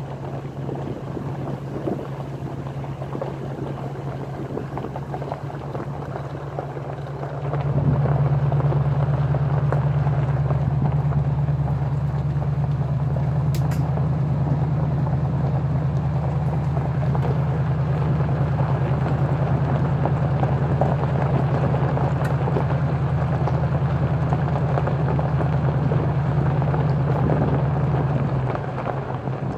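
Ford Expedition driving on a gravel road: a steady low engine and drivetrain hum with tyre noise on the gravel. It gets louder about seven seconds in, holds there, and eases off near the end.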